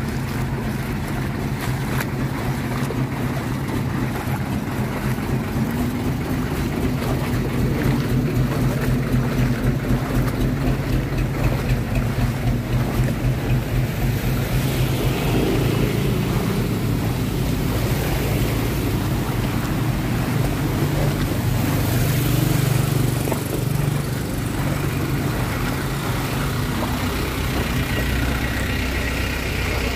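Motor vehicle engine running steadily through floodwater, with a rushing wash of water over its low hum. The sound builds about halfway through, as if a vehicle is pushing closer through the water.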